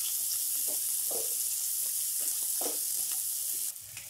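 Chopped onions sizzling in hot oil in a kadhai, stirred with a wooden spatula that scrapes through them about twice a second. The sizzle drops abruptly near the end.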